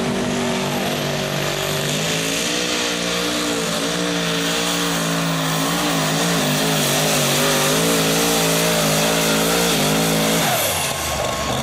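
Turbocharged Chevrolet engine of a two-wheel-drive pulling truck running at full throttle under load as it drags a weight-transfer sled. Its pitch climbs in the first couple of seconds, then holds with a wavering wobble. It cuts off about ten and a half seconds in and gives way to a lower engine idling.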